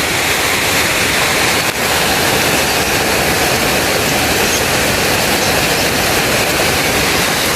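Heavy downpour of rain mixed with hail, a loud steady rush of falling water and ice.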